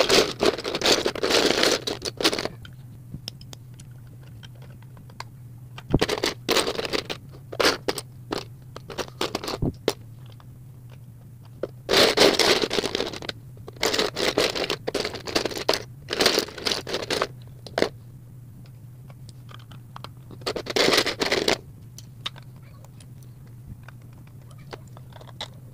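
Plastic Lego bricks rattling, scraping and clicking together as a hand rummages through loose pieces and fits them onto the build, in several bursts of a second or two with single clicks between. A steady low hum runs underneath.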